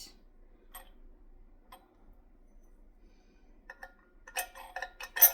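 Metal parts of a KitchenAid food grinder attachment clicking and clinking together as they are fitted into the grinder housing: a few faint clicks, then a quick run of metallic clinks from about four seconds in, the loudest just before the end.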